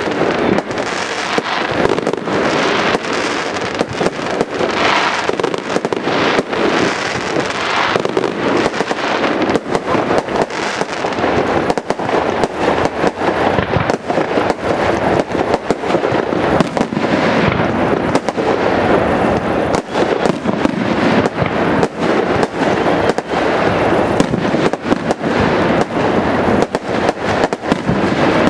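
Aerial fireworks bursting in a continuous run of sharp bangs and crackles, many in quick succession.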